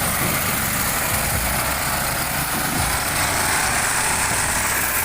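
Engine of a loaded logging truck running steadily.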